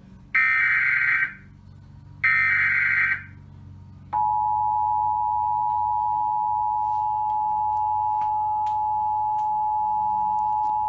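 Emergency Alert System broadcast: the last two of the three SAME header data bursts, each about a second long, then about four seconds in the steady two-tone EAS attention signal starts and holds, announcing the severe thunderstorm warning that follows.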